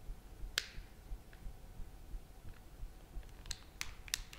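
Plastic clips of a Nexus 4's housing snapping into place as its edges are pressed shut: one sharp click about half a second in, then a quick run of three or four clicks near the end.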